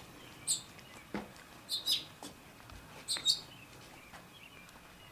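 Small birds chirping in short, high calls, three brief bursts about a second and a half apart, with one soft knock about a second in.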